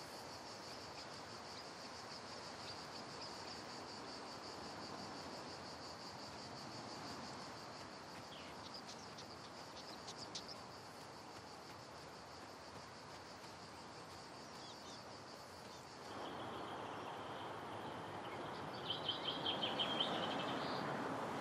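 Faint woodland ambience: insects chirring in a steady high-pitched buzz, with a few short bird chirps about ten seconds in. About sixteen seconds in the buzz gives way to a lower, steady insect trill, and a quick run of chirps comes near the end.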